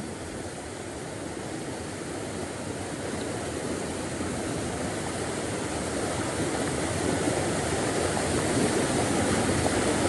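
Mountain stream rushing over rocks: a steady rushing noise that grows gradually louder.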